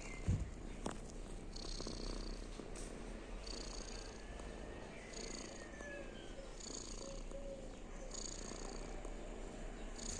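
A cat purring steadily, a sound of contentment.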